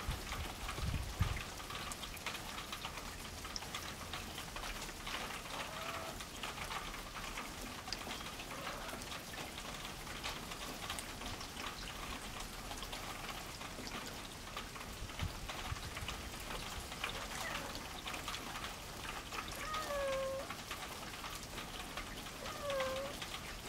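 Domestic cats making a few short, soft calls that dip and rise in pitch, faint at first and clearer twice near the end, over a steady faint crackle of fine ticks.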